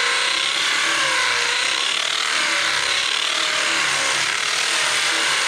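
Power drill with a masonry bit boring into hard-packed dirt wedged inside a dozer blade, running steadily, its motor pitch wavering as it works against the material.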